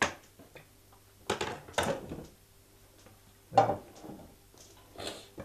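Kitchen clatter of pots, pans and lids being handled on a stovetop: a handful of separate knocks and clinks, the loudest about three and a half seconds in.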